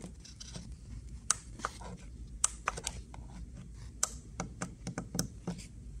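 An irregular run of about a dozen sharp clicks and taps, bunched mostly in the second half, over a steady low hum.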